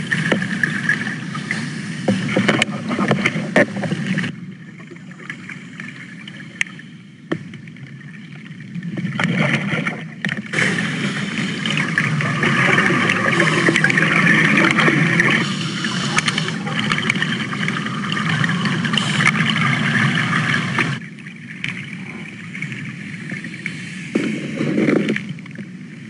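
Boat noise at sea, engine and water, in several spliced segments that change loudness abruptly about four, ten and twenty-one seconds in.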